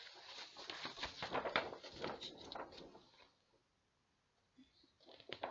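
Paper rustling as a printed concert programme is handled, opened and leafed through. The crackling stops for about a second past the halfway point, then starts again near the end.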